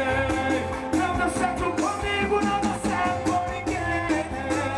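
Live band music with a male singer singing into a microphone over a steady drum beat.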